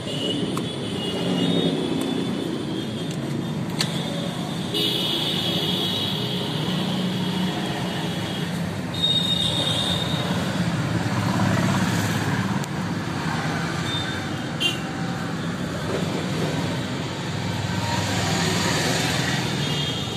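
Steady road traffic noise, with brief high-pitched tones a few seconds in and again about halfway, and a couple of sharp clicks.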